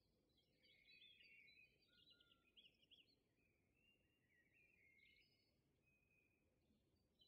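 Near silence, with faint chirping of birds in the background throughout.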